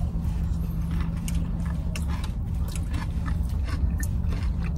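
Close-miked chewing and biting of an In-N-Out burger and fries, with many short wet mouth clicks, over a steady low hum.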